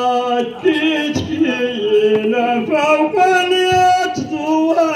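A single male voice chanting in long, drawn-out notes that step up and down in pitch, with short ornamented turns between the held notes.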